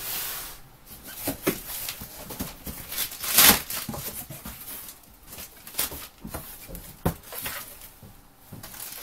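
Cardboard shipping box being handled and its flaps pulled open: irregular rustles, scrapes and knocks of cardboard, with one louder scrape about three and a half seconds in.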